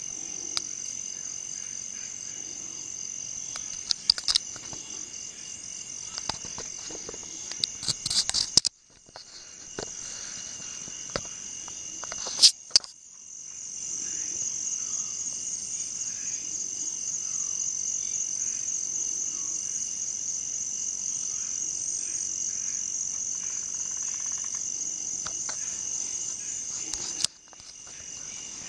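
Crickets chirping in a steady, high, pulsing chorus. A few sharp clicks are heard near the start and around the middle, and the chorus briefly drops out a few times.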